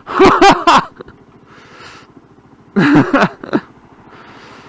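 A man's startled wordless exclamations, short sliding-pitch vocal sounds at the start and again about three seconds in, as the motorcycle slides on the slippery road. Under them the motorcycle engine runs low and steady.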